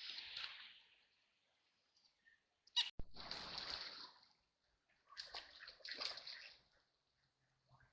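Ducks splashing in river water, in three short bursts a couple of seconds apart; the second burst opens with a sharp slap.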